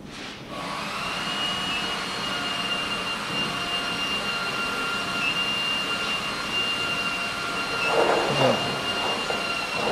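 CNC plasma cutting machine running: a steady rushing hiss with a thin high whistle, coming on about half a second in. A short louder burst of noise comes about eight seconds in.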